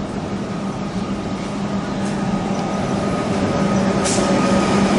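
Comeng electric suburban train arriving at the platform, growing steadily louder as it comes in, with a steady high whine over a low hum and rumble. A short sharp noise about four seconds in.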